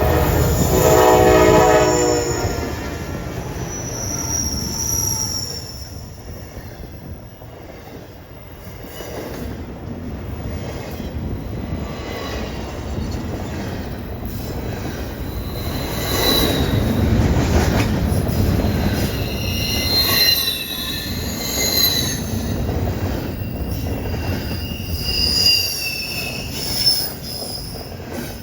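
Norfolk Southern intermodal freight train passing: its horn sounds for the first couple of seconds and stops, then the rumble of the train with high, thin squealing from the wheels, growing louder again about halfway through.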